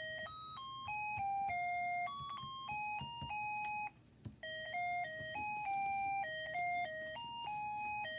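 Snap Circuits music IC playing a simple beeping electronic tune through its small speaker, one note at a time in quick steps. The tune stops for about half a second near the middle, then starts over.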